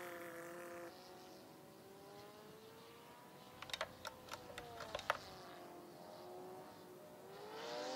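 Radio-controlled model plane's motor droning faintly in the distance, rising and then falling in pitch, and growing louder near the end as the plane comes closer. In the middle, a quick run of light clicks from the hand-held radio transmitter's controls.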